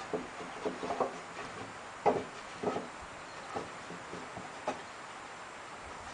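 Wooden pallet boards knocking and clattering as they are laid down and shifted into place, a scattering of separate knocks with the loudest about two seconds in.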